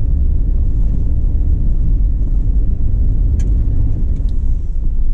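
Steady low rumble of a Jeep Wrangler driving at highway speed on pavement, heard from inside the cab: engine, tyre and wind noise together, with a couple of faint ticks midway.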